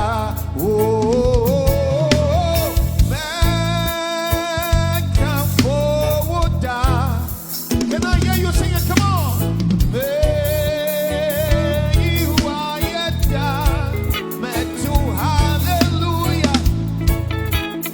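Live gospel praise music: a lead voice singing long, wavering held notes over a full band of drum kit, bass and guitar.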